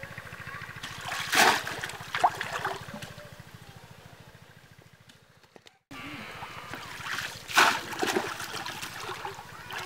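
Shallow muddy water sloshing and splashing as a conical bamboo polo fish trap is pushed down into it by hand, with two sharp splashes, about a second and a half in and again near the end.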